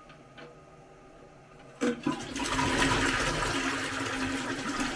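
Toilet flushing. About two seconds in there is a click as the flush is worked, then water rushes from the cistern into the bowl. The flush is being tested on a newly fitted cistern.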